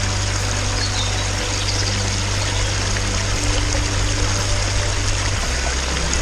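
Running stream water, a steady rush, with soft background music and its low held notes underneath.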